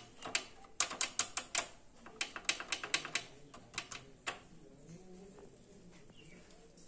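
Gear shift pedal and linkage rod of a TVS Apache 160 BS6 being worked by hand, giving quick clusters of sharp metal clicks and rattles. The clicking stops a little over four seconds in.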